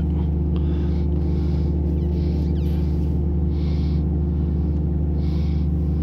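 A steady low machine hum, even and unchanging, with a faint soft hiss coming and going about every second and a half.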